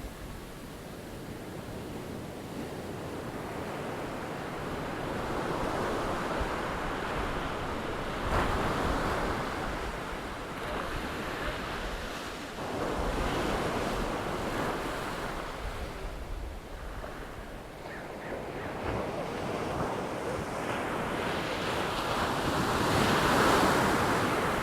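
Ocean surf: waves swelling and washing in every few seconds, the loudest near the end, with wind on the microphone.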